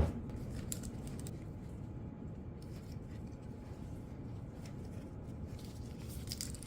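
A low thud at the start, then a quiet low room hum with a few faint clicks and taps of hands handling tools or parts.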